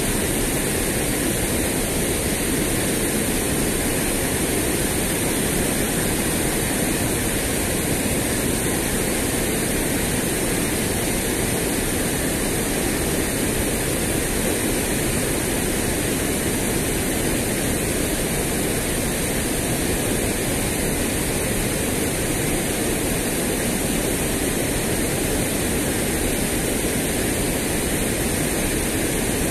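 Steady rushing of water pouring over a river weir and sluice spillway, a constant even noise without a break.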